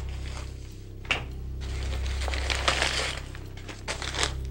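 A brown paper bag of money is tossed down and lands with a knock about a second in, followed by paper crinkling and rustling. A low, steady music drone runs underneath.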